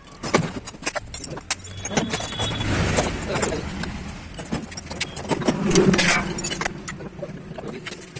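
Metal tools and engine parts clinking and clattering as a motorcycle engine is taken apart, with a low rumble rising and fading in the first half.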